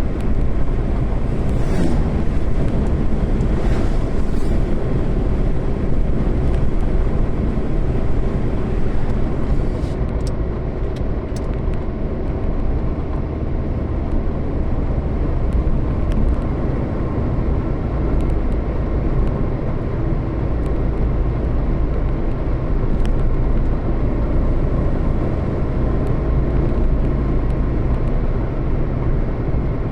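A moving road vehicle's engine and road noise: a steady low rumble throughout, with a few faint ticks near the middle.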